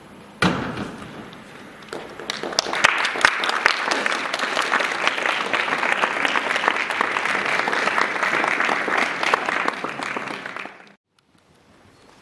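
Applause: a sudden start about half a second in, swelling into dense clapping about two seconds in, then cutting off abruptly near the end.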